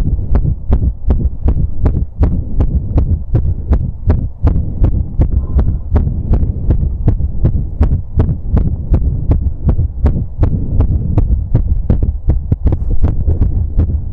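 A man's heartbeat heard through a stethoscope chest piece pressed over the apex of the heart, beating fast and regularly after exercise: sharp lub-dub thuds about four a second over a steady low rumble.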